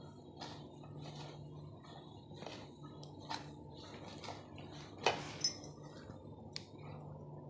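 Hands kneading a crumbly ground sesame mixture with ghee in a stainless steel bowl: soft gritty squeezes and rustles repeating about once a second, with two sharp clicks against the bowl a little after five seconds in.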